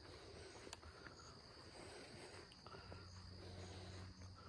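Near silence outdoors: faint steady insect chirping with soft repeated high chirps about twice a second, and a few faint ticks.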